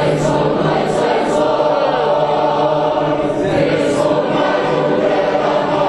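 A choir singing a hymn, many voices holding long notes together.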